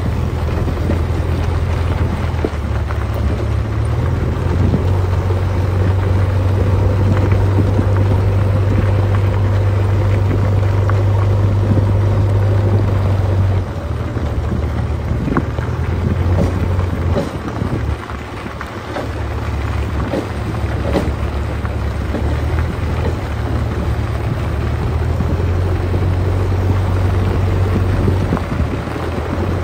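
JCB 3DX backhoe loader's diesel engine running with a steady low drone as the machine drives along. The drone eases briefly twice around the middle.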